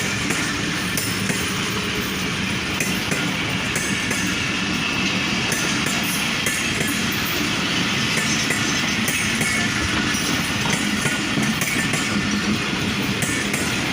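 Passenger train on the track, a steady rumble of coaches rolling with light wheel clatter on the rails.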